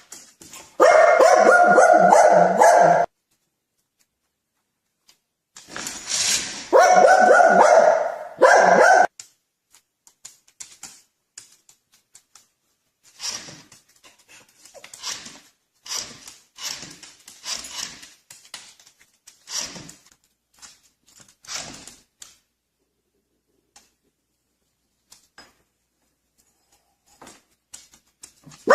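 A dog barking in two loud stretches of about two seconds each, followed by many short, fainter sounds.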